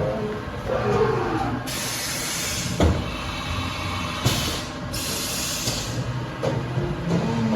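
Haas VF-2SSYT CNC vertical machining center running. Its motors whine in sweeps that rise and fall in pitch. Hissing spray bursts come three times, and there is a sharp clunk about three seconds in.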